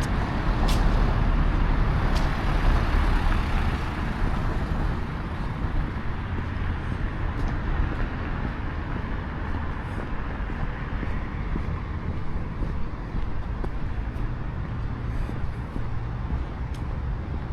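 Road traffic noise: a steady vehicle rumble, louder for the first few seconds and then easing to an even level.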